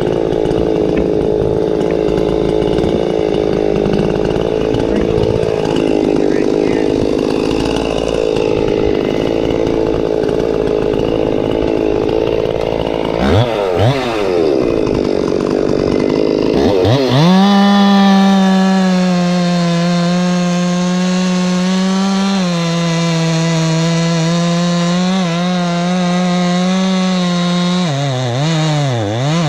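Gas chainsaw cutting into a pine trunk, its engine sound rough and laboured for the first dozen seconds. About 13 s in the throttle rises and falls twice, then the saw holds a steady high-pitched run from about 17 s, with quick dips in pitch near the end.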